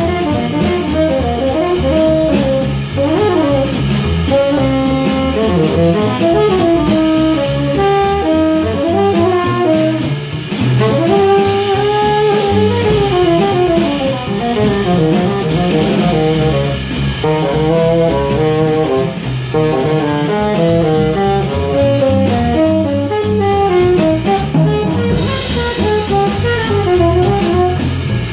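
Live jazz trio: tenor saxophone playing fast, winding lines over plucked double bass and drum kit with cymbals.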